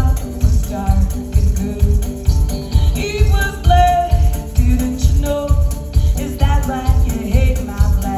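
Live music: a woman singing over a banjo, with a steady low beat about twice a second.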